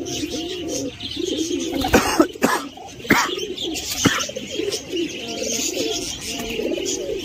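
Domestic pigeons cooing, several birds at once with their calls overlapping throughout. A few short sharp sounds stand out between about two and four seconds in.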